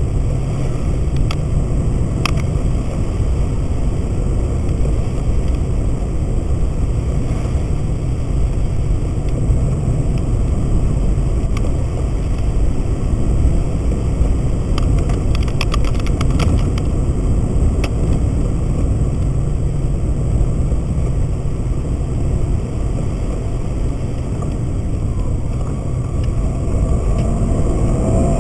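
Car interior noise while driving on a wet road: a steady low rumble of engine and tyres, with a few faint clicks.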